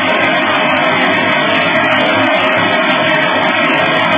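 Background instrumental music with guitar and a steady beat.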